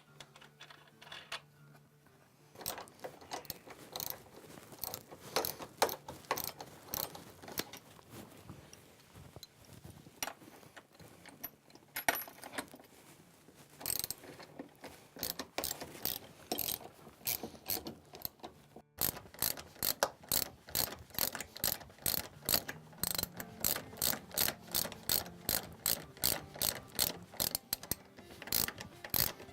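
Socket ratchet wrench clicking as the vise's 3/8-inch bolts and nylon lock nuts are tightened, in uneven runs of clicks, then a quicker, even run after a short break about two-thirds of the way through.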